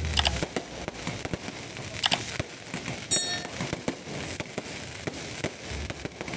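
Aerial fireworks going off: a constant crackle of sharp pops and cracks, with heavier bangs near the start and about two seconds in. The loudest crack comes about three seconds in, with a short high whistle.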